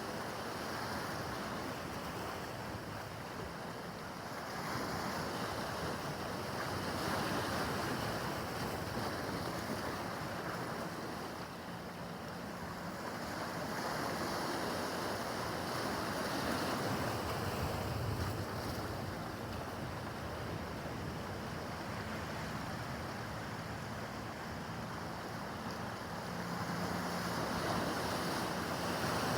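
Rough harbor water washing and breaking in swells that rise and fall every several seconds, with wind buffeting the microphone.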